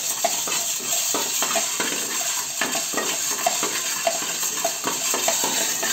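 A spatula stirring and scraping in a pan of food frying in oil, with a steady sizzle and irregular scrapes and taps about twice a second.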